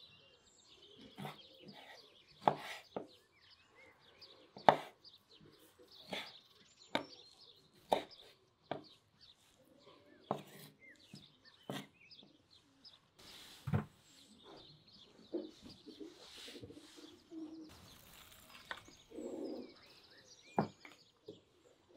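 Kitchen knife cutting through chunks of white fat and knocking on a wooden cutting board, sharp irregular knocks about once a second, with birds chirping faintly in the background.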